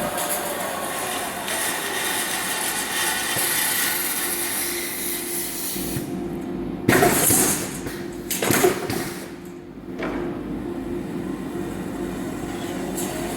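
Bandsaw blade workshop machinery running steadily, with two loud, sudden hissing bursts about seven and eight and a half seconds in.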